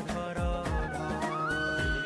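Instrumental music from a Hindi devotional song: drum beats about twice a second under a melody line, with a high note coming in and held steady near the end.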